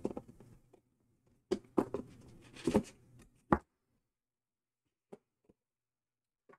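Cardboard packaging being handled: a string of light taps and knocks and a short scraping rustle as a cardboard piece is lifted out of the box, ending in a sharp knock about three and a half seconds in. Then near silence with a couple of faint ticks.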